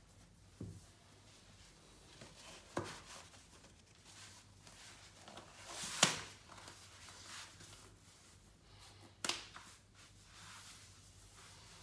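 Faint rustling and sliding of a stretch-fabric calf sleeve being pulled up the leg and smoothed by hand, with four short sharp clicks or snaps; the loudest, about six seconds in, follows a rising rustle.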